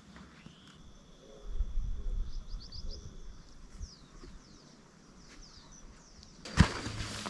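Small birds chirping in short, quick downward-sweeping notes in two runs, over a low rumble in the first half. Near the end comes a sharp thump followed by more knocks.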